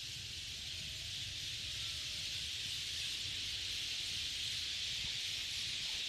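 Dense, steady din of a huge flock of red-billed starlings calling all at once at their roost, too thick to pick out single calls, growing slightly louder, with a low rumble underneath.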